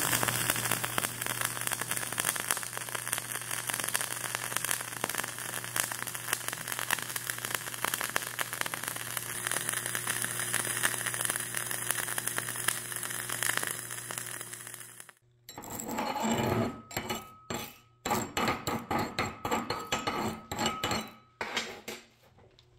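Gas-shielded flux-cored (dual shield) arc welding: the arc runs with a steady, dense crackle over a low hum for about fifteen seconds, then stops suddenly. After it comes a quick, uneven run of sharp metallic clinks as the flux slag is knocked off the fresh bead.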